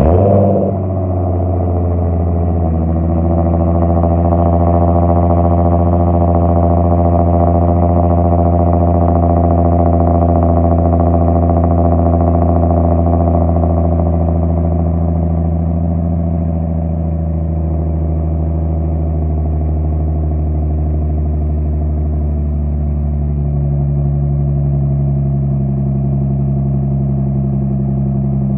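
Nissan 350Z HR's 3.5-litre V6 (VQ35HR) idling through an Agency Power aftermarket exhaust, heard at the tailpipe just after a cold start. It holds a steady, fast cold idle without revs, and its tone shifts about two-thirds of the way through.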